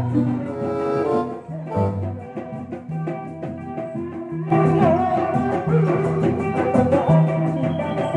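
Background music: sustained melody notes over a repeating bass line, growing fuller and louder about four and a half seconds in.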